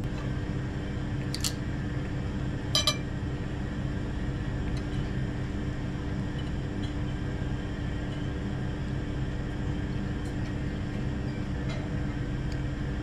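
Two light clinks of tableware, the second with a short ring, over a steady low hum of the room.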